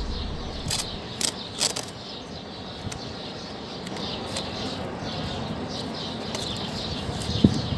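Wide adhesive tape being pulled off the roll, with a rapid crackle as it peels away, after a few sharp clicks early on. A single low knock comes near the end.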